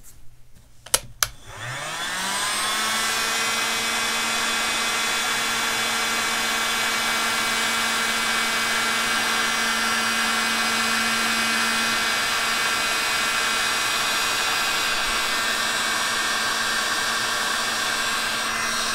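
Two sharp clicks about a second in, then a Porter-Cable heat gun starts, its fan rising in pitch over about a second and then blowing steadily. It is heating a small lead jig head before the head is dipped in powder paint.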